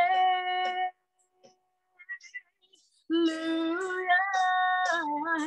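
A woman singing a gospel worship song solo, holding a long note. She breaks off for about two seconds, then comes back in with sustained notes that end in vibrato.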